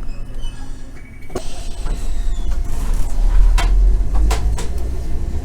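Randen tram running along its line, heard from inside the car: a steady low rumble that grows heavier a couple of seconds in, with a few sharp clacks from the wheels.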